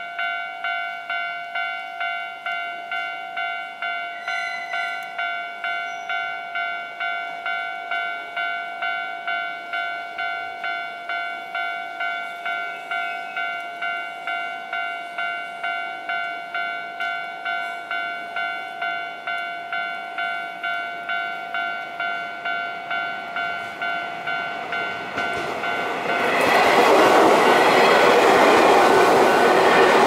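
Japanese level-crossing warning bell ringing over and over in an even rhythm, about two strokes a second. Near the end a Keio Inokashira Line electric train passes close by, and its loud rush takes over from the bell.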